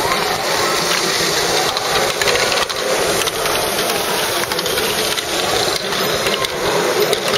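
LEGO Great Ball Contraption modules running together: motors and gears whirring while small plastic balls click and clatter through the lifts and tracks, a steady busy mechanical clatter.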